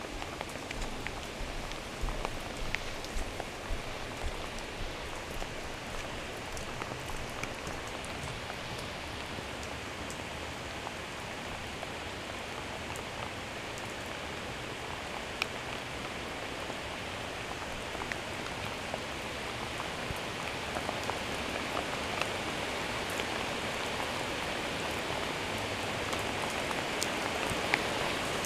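Steady rain falling, with scattered sharp ticks of individual drops; it grows gradually louder through the second half.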